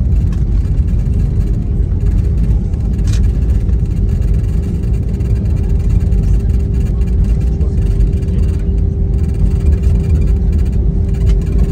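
Cabin noise of an Airbus A320 on its landing roll, spoilers deployed: a loud, steady low rumble of the engines and the wheels on the runway, with a steady humming tone that comes in about a second in.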